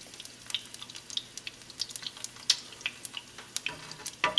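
Whole garlic cloves sizzling in hot oil in a sauté pan, searing, with irregular small crackles and pops. Near the end there is a louder clack as metal tongs touch the pan to turn the cloves.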